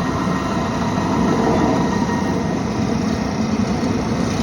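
Paint mixer's motor and belt drive running steadily, the speed control just repaired and working.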